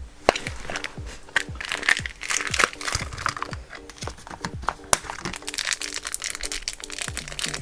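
Crinkling and tearing of a plastic toy blind bag being opened by hand, irregular crackles throughout, over background music with a steady beat.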